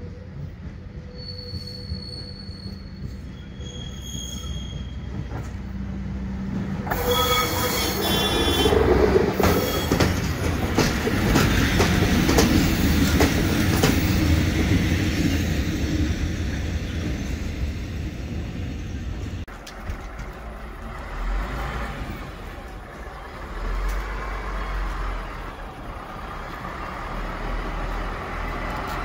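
Diesel railcar approaching and passing close by, its engine running and its wheels squealing briefly on the rails as it comes in. The sound swells to its loudest as it goes past. After an abrupt change about two-thirds of the way through, a railcar's diesel engine idles with a low throb.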